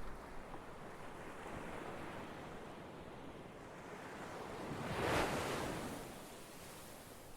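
Ocean surf washing steadily, with one wave swelling and breaking loudest about five seconds in, then drawing back.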